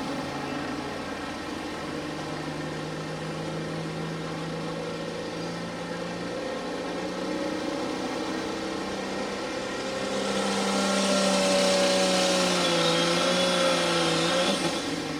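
Diesel pulling truck's engine running at the line, then revving louder about ten seconds in, its pitch wavering, as it puts out black smoke and launches on the pull.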